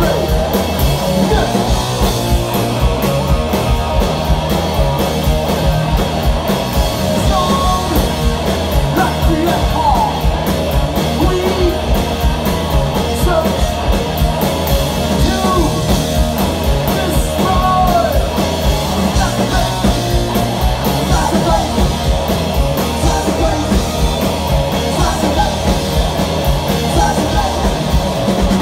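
A live punk rock band playing: distorted electric guitar, bass guitar and a drum kit keeping a steady, driving beat, with a singer's voice over it.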